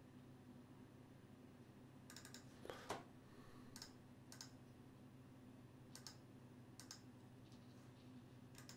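Faint, scattered clicks of a computer mouse and keyboard as a video is edited, about seven in all with a few in quick succession near the three-second mark, over a low steady hum.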